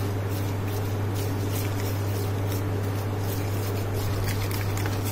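Wire balloon whisk beating thick besan and cornflour batter in a stainless steel bowl: repeated wet strokes with light metal scraping. A steady low hum runs underneath and is the loudest sound.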